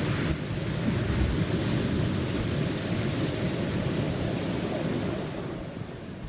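Sea waves washing against a rocky shore, with wind rumbling on the microphone; it eases off near the end.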